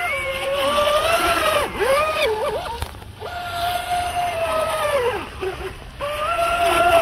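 SSS 2960 3000kv brushless motor of an electric RC speedboat whining at speed, its pitch rising and falling with the throttle. It cuts out briefly about three seconds in and again for most of a second about five seconds in.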